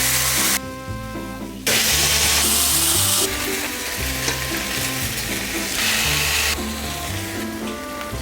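Marinated LA galbi beef short ribs sizzling as they cook, the loud sizzle cutting in and out abruptly several times, over background music.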